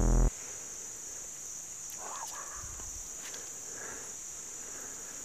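Electronic music cuts off a moment in. It leaves a steady high-pitched drone of insects, with a few faint brief sounds over it.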